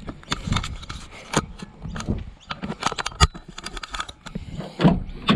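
Footsteps and small clicks and knocks of someone walking up to a van, then a louder clunk near the end as the driver's door is opened.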